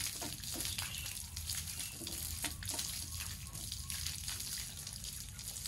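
Running water splashing steadily while a fixie bicycle is washed, with scattered light knocks and clicks.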